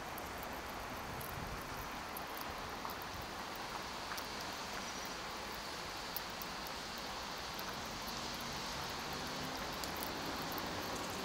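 Steady outdoor background hiss, with scattered faint small clicks.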